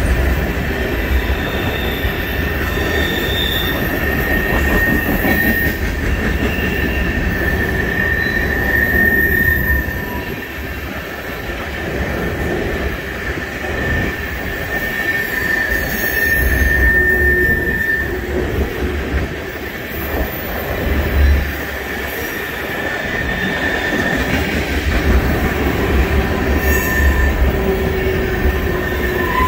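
Empty railroad tank cars of a freight train rolling past on the rails, a steady rumble of wheels and cars, with a high squeal from the wheels that swells and fades several times.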